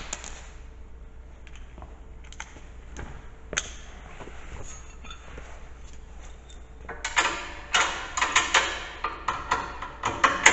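Scattered metallic clinks and knocks of hand tools against steel plow-mount parts. About seven seconds in they turn into a quick run of ringing metal clanks.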